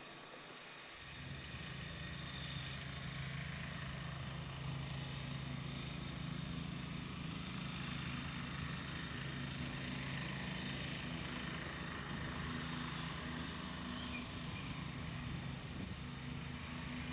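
A steady low mechanical hum that comes up about a second in and then holds even, with a light hiss over it.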